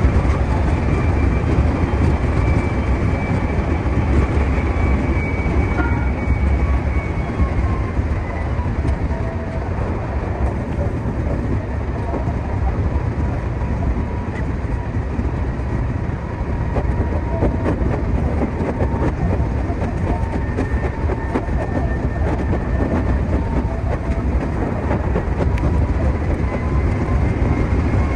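Meitetsu 2200 series electric train running at speed, heard from inside the driver's cab: a steady rumble of wheels on rail with some clickety-clack, and faint whining tones that drift in pitch.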